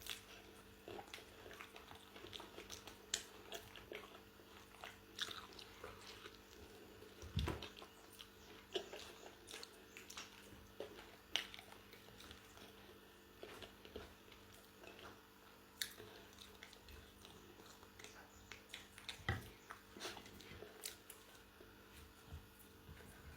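Close, quiet chewing and biting of crisp fried chicken chicharrón: irregular crunches and mouth clicks, over a faint steady hum.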